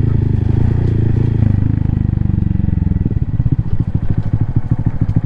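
Honda Monkey 125's single-cylinder four-stroke engine running steadily at low speed. About three seconds in, its note drops to a slower, broken beat of separate exhaust pulses as the bike slows.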